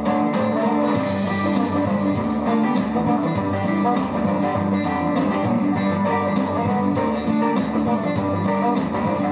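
Guitar music played through a TDA2030A amplifier board into a speaker, running steadily.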